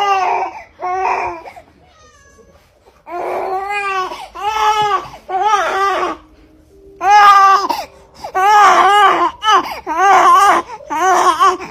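Infant crying in a string of short wails that rise and fall in pitch, with a pause of about a second and a half after the first two.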